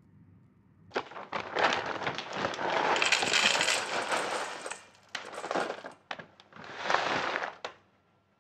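Dry cherry wood chips poured from a bag into a stainless steel bowl, rattling and clattering. It comes in three pours: a long one starting about a second in, then two short ones, and it stops near the end.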